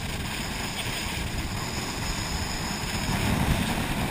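Jet ski running at speed over open water: a steady rush of spray and hull slap mixed with the engine's drone and wind buffeting the microphone, growing a little louder about three seconds in.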